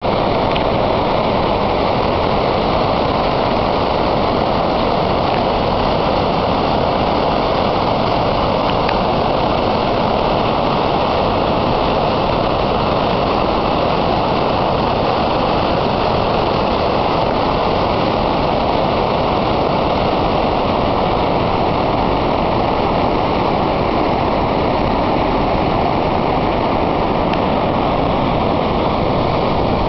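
Water released through a dam's outlets, gushing and churning in the river below: a loud, steady rush.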